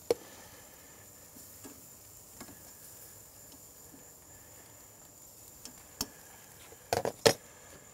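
Metal tongs clicking against a metal sheet tray and a hot pan as skirt steaks are laid on the grill: a sharp clack at the start, another about six seconds in, and a quick cluster of louder clacks near the end. Beneath it runs a faint steady sizzle of meat in the very hot pan.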